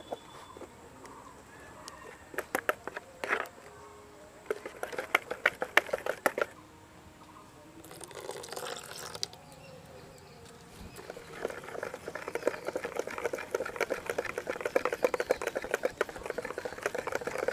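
Wire balloon whisk beating cake batter in a plastic bowl: runs of quick clicking strokes, stopping for a short pour of milk into the batter about eight seconds in, then a long fast stretch of whisking.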